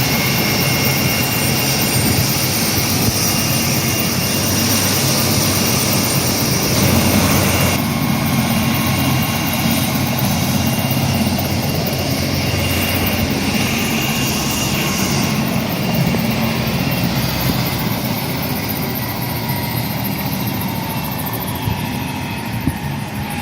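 Medical helicopter running, with a steady high turbine whine over the low beat of the rotor. About eight seconds in the sound shifts abruptly. In the last seconds some of the whine tones slowly fall in pitch as the level eases down.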